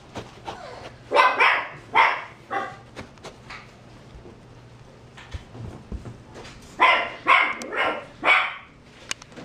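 Dog barking in two short runs of about four high, sharp barks each, about a second in and again near the end.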